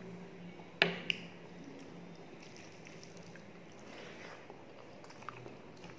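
Close-up eating sounds: soft, wet chewing and squishing of rice and mutton curry eaten by hand, with two sharp clicks a quarter-second apart about a second in.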